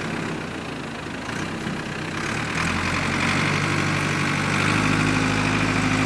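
Ford 555C backhoe's Ford industrial diesel engine running while it pushes back snowbanks. It picks up revs and gets louder in two steps, about halfway through and again near the end.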